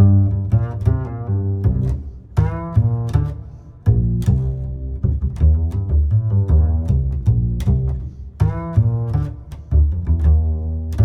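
Background music with a heavy bass line, a sharp steady beat and a bending melodic line that comes in twice.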